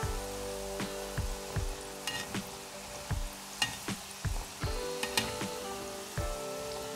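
Small yogurt-dough donut balls deep-frying in hot oil, sizzling steadily. Partway through, a slotted metal skimmer stirs them in the oil.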